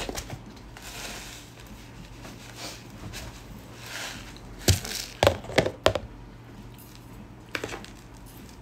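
Granulated tapioca flour shaken from a plastic container onto a plate with a soft, dry hiss. Several sharp knocks and clicks come in a cluster past the middle, with a few more near the end.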